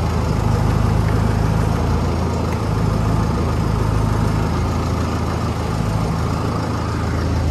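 Pickup truck engine idling steadily while the front wheels are steered.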